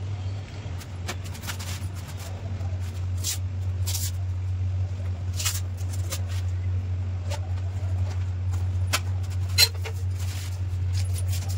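Scattered rustles and clicks of bags and gear being handled while luggage is taken off a touring bicycle, over a steady low hum. One sharper click comes about ten seconds in.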